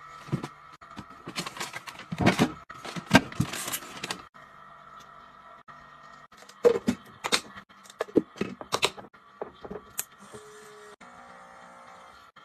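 Hands handling and setting down small items and packaging: irregular taps, clicks and rustles, busiest about two to four seconds in and again around seven to nine seconds in, over a faint steady hum.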